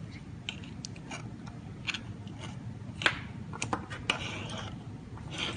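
Scattered light clicks and ticks, irregular and a dozen or so in number, the sharpest about three seconds in, over a faint steady low hum.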